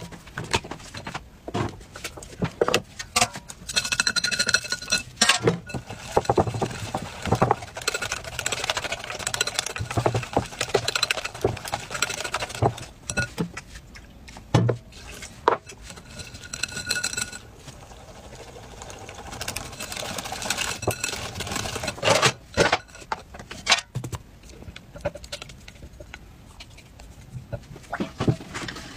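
Cake batter being stirred and whisked in a glass bowl, with chopsticks and a wire whisk clicking and scraping against the glass in quick irregular strokes. Twice, for a few seconds, a steady high tone sounds along with them.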